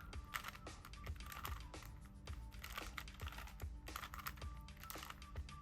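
Plastic Rubik's Cube layers being turned by hand in quick repeated moves: a continuous run of irregular sharp clicks and clacks.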